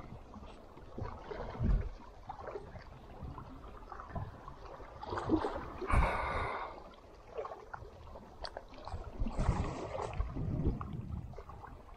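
Water sloshing and lapping in uneven bursts, the loudest about six seconds in.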